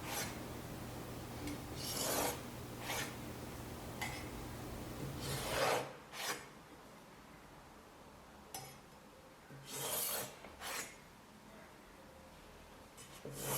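Kitchen knife slicing through soft rolled dough and scraping along a cutting board, cutting it into long strips: about eight or nine separate short rasping strokes at uneven intervals.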